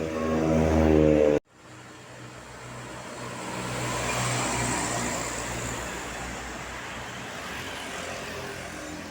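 Bus engine running and growing louder as it approaches, cut off abruptly about a second and a half in. Then a road vehicle passing by, swelling to a peak around the middle and fading away.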